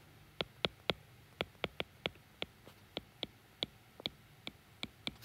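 A stylus tip tapping and clicking on a tablet's glass screen while words are handwritten: irregular light clicks, roughly three a second.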